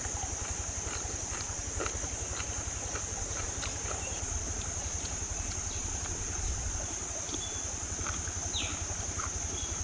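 Steady high-pitched insect chorus over a low rumble of wind on the microphone, with a few faint soft clicks.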